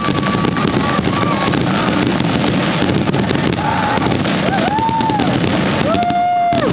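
Steady wind noise buffeting the microphone, with a few drawn-out calls from spectators about halfway through and again near the end.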